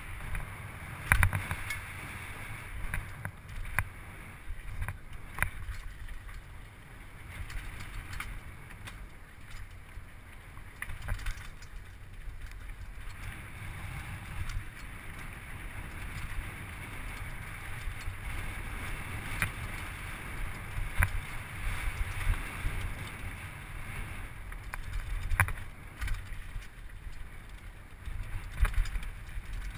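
Downhill mountain bike ridden fast on a dry dirt trail: steady wind and tyre rumble on a helmet-mounted camera, with frequent sharp clacks and knocks as the bike rattles over bumps.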